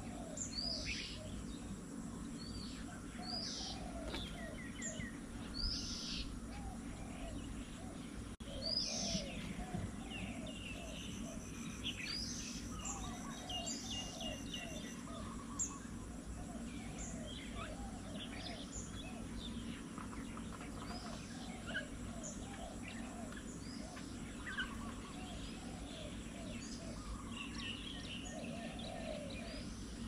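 Several wild birds calling and chirping over one another: quick high chirps and whistles, with strings of short lower notes, over a steady low background rumble.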